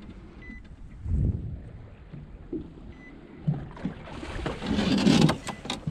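Small waves lapping and knocking against the hull of an aluminium fishing boat, with wind on the microphone. A louder rush of water and wind builds up over the last two seconds.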